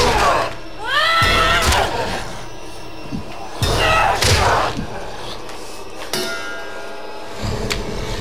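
Horror-film sound effects: a few sudden, swooping ringing tones with clanging hits and a low rumble under them, about a second in and again about four seconds in, then a steadier ringing layer.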